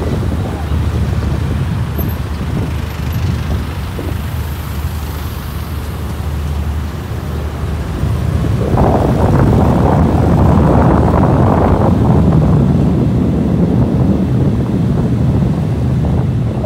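Passenger coaches of a diesel-hauled express train rolling along the track, a steady low rumble mixed with road traffic. It grows louder about halfway through for a few seconds, then eases off.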